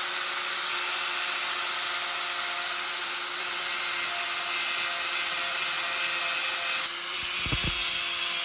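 Angle grinder grinding bevels into the edges of a broken cast-iron part to prepare it for welding: a steady motor whine over the hiss of the disc on metal. A couple of dull knocks near the end.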